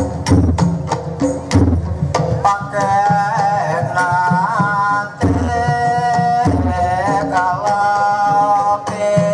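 Live Dolalak music: hand drums beating a quick rhythm, joined about two and a half seconds in by a wavering sung melody over the drumming.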